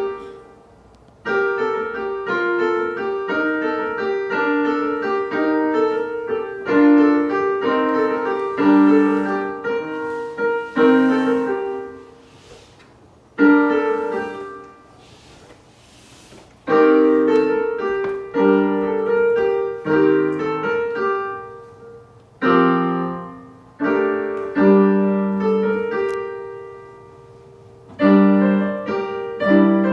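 Piano being played in short phrases that stop and start again with brief pauses between them, like a child's practice.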